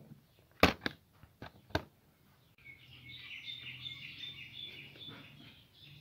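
A few sharp clicks and knocks in the first two seconds, from a red plastic basket being picked up by its handle. From about halfway, faint bird chirping.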